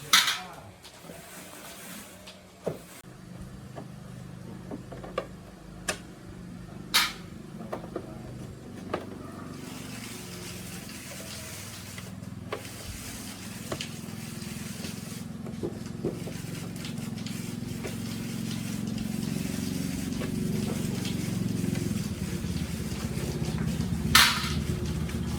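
Motorbike engine running with a steady low hum that slowly grows louder, with a few sharp metallic clicks over it.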